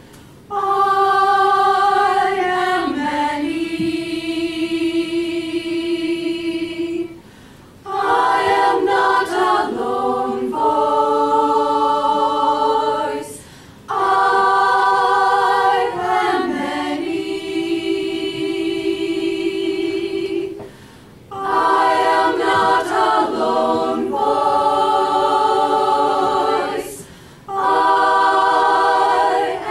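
Women's choir singing a cappella, holding long chords in phrases of several seconds, with a brief pause between phrases about four times.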